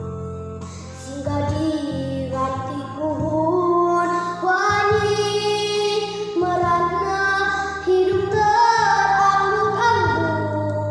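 A young girl singing a solo over a steady instrumental backing track, holding several long notes.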